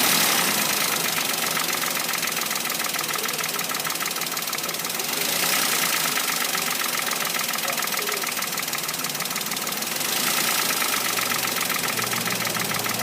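Toyota Wigo engine running with a rapid, even metallic knocking, the engine knock the owner is complaining of.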